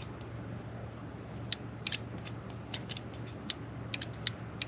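Light, irregular clicks and taps from parts and tools being handled while working on car wiring, over a steady low hum.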